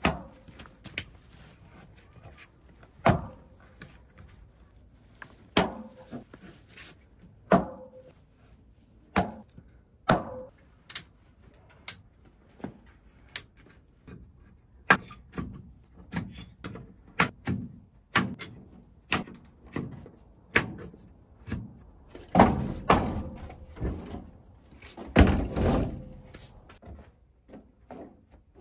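Irregular knocks and clacks of objects being handled and set down, a dozen or more separate hits, busiest and loudest about 22 to 26 seconds in.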